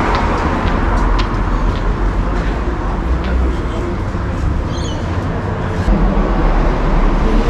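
City street traffic: a steady rumble of passing road vehicles, with a few light clicks.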